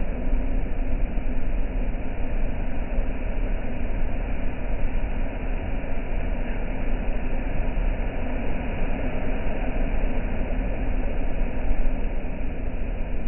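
Steady roar of a rough sea's surf, with a deep rumble underneath.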